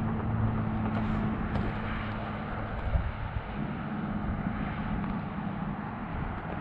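A steady low engine-like hum over an even rushing noise.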